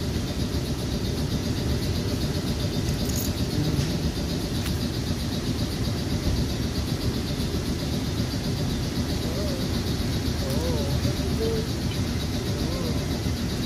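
Steady low rumble with no break, with a couple of faint clicks a few seconds in.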